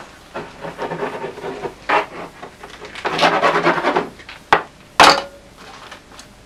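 Hands rummaging and scraping among brushes and tools on a cluttered wooden workbench, then two sharp knocks about four and a half and five seconds in, the second the loudest.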